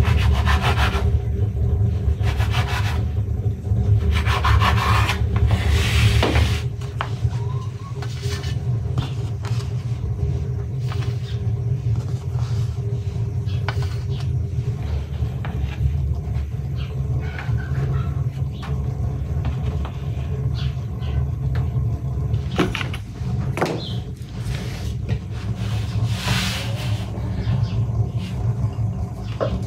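Crimped metal pastry cutter scraping through dough onto a wooden board, with dough handled and rubbed on the board: repeated short scraping strokes, thickest in the first several seconds and again near the end, over a steady low rumble.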